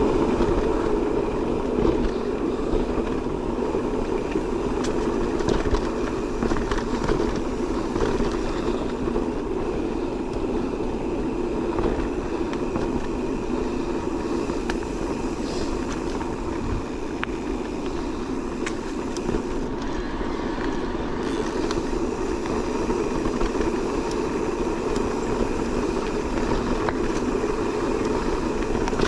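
Electric mountain bike being ridden along a trail. A steady hum, likely from the drive motor, runs under tyre rumble, with many small clicks and rattles from the bike.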